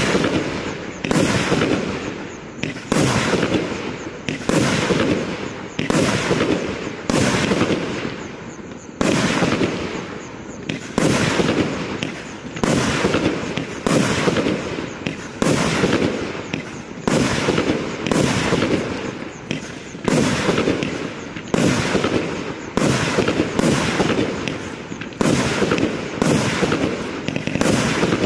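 A 1.2-inch consumer firework cake firing shot after shot, about one every one and a half seconds. Each sharp bang dies away in a crackle over about a second.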